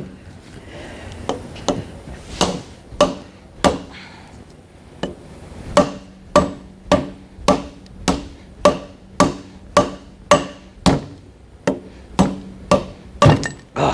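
Hammer blows on metal parts of a transfer case as a stubborn part is knocked loose: a few scattered blows, then steady blows about two a second, each ringing briefly.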